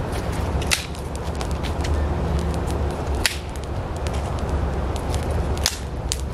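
Dry sticks snapping as kindling is broken and fed to a small, just-lit campfire: about four sharp cracks with smaller ticks between, over a steady low rumble.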